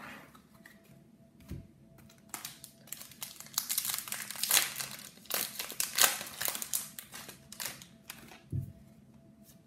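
A trading-card pack's wrapper being torn open and crinkled by hand: a dense run of crackling from about two seconds in until about seven and a half seconds.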